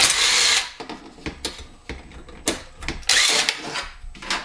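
Cordless power driver backing out the bottom shroud bolts on a Predator 212cc engine, in two short runs, one at the start and one about two and a half seconds in, with sharp clicks and knocks of metal between.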